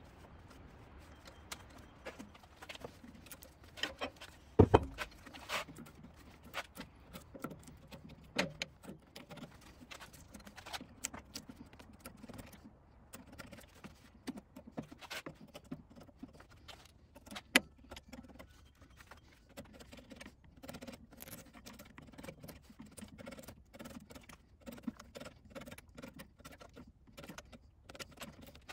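Bench chisel prying and scraping bark off a green redbud blank held in a lathe chuck, with scattered clicks, scrapes and small knocks as the bark chips away. There is one louder knock about five seconds in.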